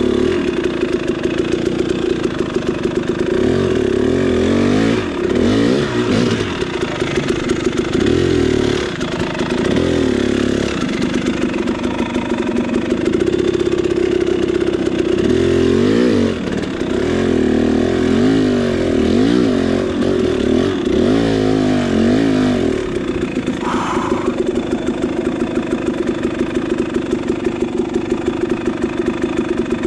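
KTM 300 two-stroke dirt bike engine idling, with repeated short throttle blips that rev it up and down in two stretches during the first two-thirds. It then settles into a steady idle for the last several seconds.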